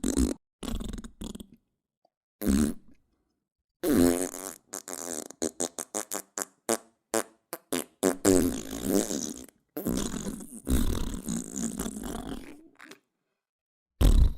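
A series of fart sound effects: a few short blasts, then a long run of rapid sputtering pulses and longer buzzy farts through the middle, and one more short blast near the end, each separated by dead silence.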